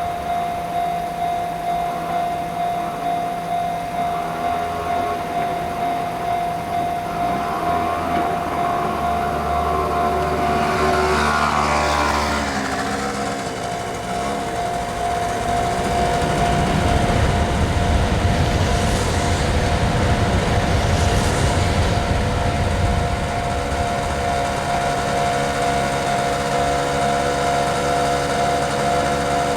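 Japanese level-crossing warning bell ringing its repeated "kan-kan" at about two strikes a second, while a train passes: a falling whine about ten to thirteen seconds in, then a loud rumble of the train running by from about sixteen to twenty-three seconds in.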